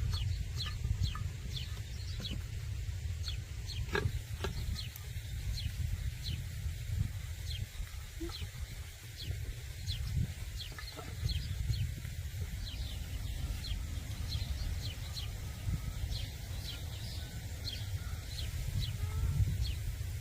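Birds chirping in short, high, falling peeps, two or three a second, over a steady low rumble.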